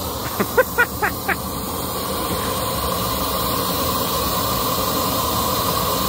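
Propane torch burning with a steady hissing rush that grows slightly louder. A few short chirping calls come within the first second and a half.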